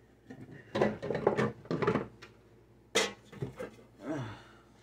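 Kitchen containers and dishes clattering and knocking as they are handled, with a sharp knock about three seconds in.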